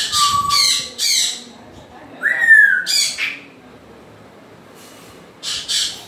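African grey parrot calling in three bouts: harsh squawks mixed with short whistles at the start, a rising-then-falling whistle followed by squawks a little after two seconds in, and a brief squawk near the end.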